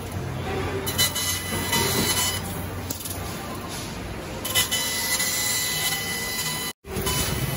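CNC laser cutting machine cutting 6 mm steel plate: a steady cutting hiss that grows louder in stretches as the head works, with a thin whine at times. The sound drops out for an instant near the end.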